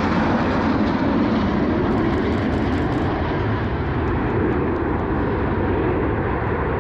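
Jet roar from a formation of Aermacchi MB-339 trainers passing overhead, the sound steady and loud with its hiss slowly dulling as the jets move away.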